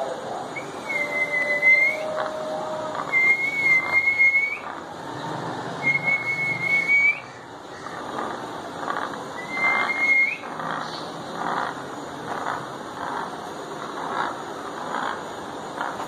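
African grey parrot whistling: four flat whistles in the first ten seconds, each about a second long and ending in a short upward flick. A run of short, softer sounds follows.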